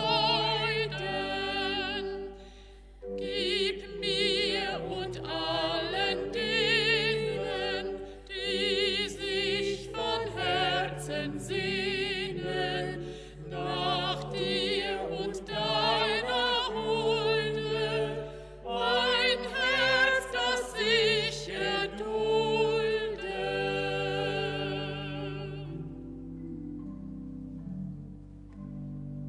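Two women singing in a classical style with strong vibrato, over a held instrumental accompaniment. The voices stop about 26 seconds in, and the accompaniment carries on alone, more quietly.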